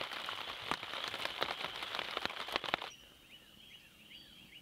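Dense crackling and popping noise full of sharp clicks for about three seconds. Then, after a sudden drop in loudness, a faint steady high tone with a short falling chirp repeated about twice a second.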